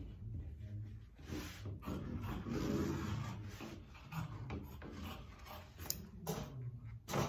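Cowhide leather being cut along a traced pattern line: an uneven series of short cutting strokes, with a sharp knock near the end.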